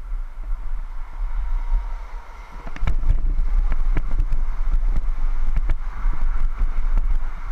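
Wind buffeting the microphone over the rumble of a Trikke's small wheels rolling on pavement. About three seconds in, the wheels start clattering over the boards of a wooden bridge deck: a quick, irregular run of knocks and thumps that goes on to the end.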